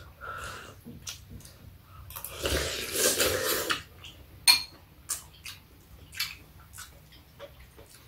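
Metal spoons and chopsticks clicking and scraping against ceramic soup bowls during a meal, with chewing; a sharp clink about four and a half seconds in is the loudest. About two seconds in comes a longer noisy rush lasting about a second and a half.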